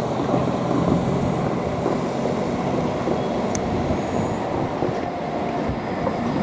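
Steady rumbling running noise of a train.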